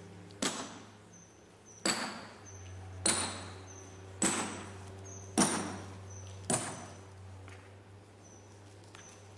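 Sledgehammer striking steel wedges set in a row of drilled holes in a granite block, driving them in to split the stone. Six blows a little over a second apart, each a sharp metallic clank with a brief ring, stopping about two-thirds of the way through.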